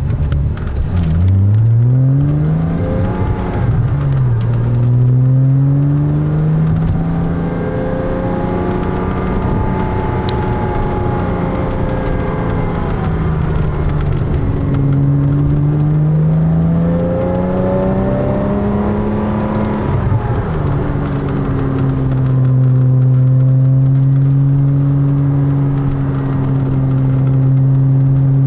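Porsche Cayman S flat-six through an AWE Tuning stainless catback exhaust, heard from inside the cabin while driving slowly. The engine note climbs with the revs and drops at each upshift, about a second in, again about four seconds in and again about two-thirds through, then holds steady at a light cruise.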